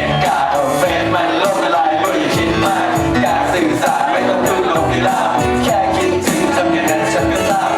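Music with singing, loud and continuous.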